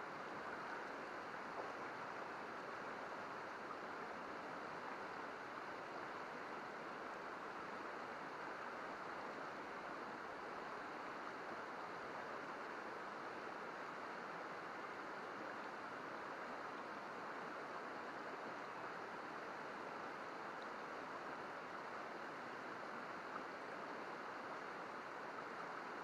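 Shallow, rocky river babbling over stones: a steady, even rush of flowing water with no separate events.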